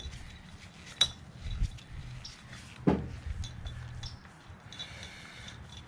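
Light metallic clinks and taps as new bolts are handled and started by hand into the cover of a Viair 380C air compressor, with a sharp click about a second in and a duller knock near three seconds.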